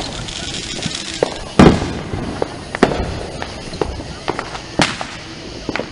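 Fireworks going off: a string of sharp bangs and pops, the loudest about a second and a half in, with others spread through the rest of the clip.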